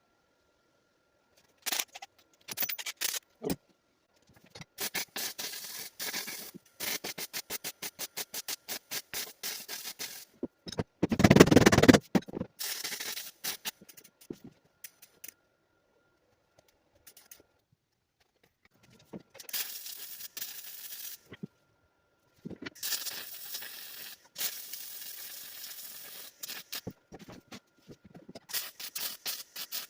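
Welding a steel subframe connector to the car's floor: several short runs of crackling arc, each starting and stopping, some broken into quick stitches. About eleven seconds in there is a louder, deeper burst.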